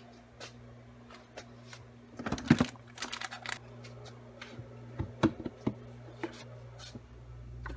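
Plastic food containers and jars knocking and clattering as they are taken out of a refrigerator, in two clusters of clicks and knocks, the louder about two and a half seconds in and another about five seconds in, over a steady low hum.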